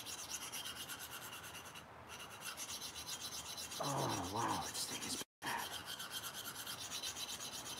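Knife blade being stroked rapidly back and forth across a coarse handheld sharpening stone (under 250 grit), a steady scraping rub, while the edge bevel is being set. The sound cuts out for a moment a little after five seconds in.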